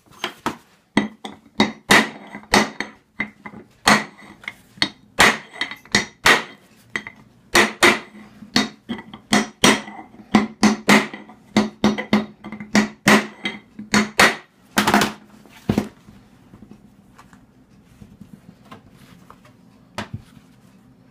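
Hammer blows driving a heated 74-tooth steel starter ring gear down onto an aluminum outboard flywheel through a flat bar, seating the shrink fit: sharp metallic strikes with a ring, about two a second, uneven. They stop about 16 seconds in, leaving only a few light knocks as the flywheel is handled.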